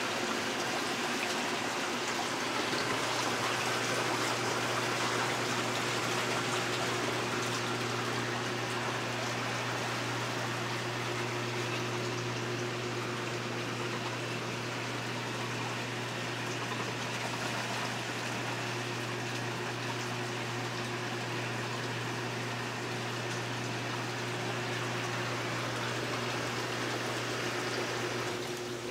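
Hot tub running: water splashing and rushing steadily, with the steady hum of the spa's pump motor underneath.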